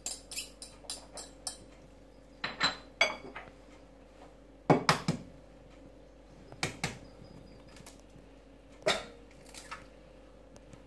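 A fork tapping and scraping against a small ceramic bowl in quick strokes, then separate sharper knocks and clinks on crockery, the loudest about five seconds in. Near the end comes a knock as an egg is cracked on the bowl.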